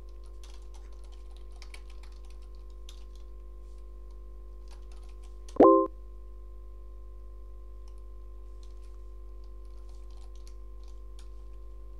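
Computer keyboard typing, light scattered keystroke clicks over a steady electrical hum. About halfway through comes one short, loud electronic blip: the chat's sound as a message is sent.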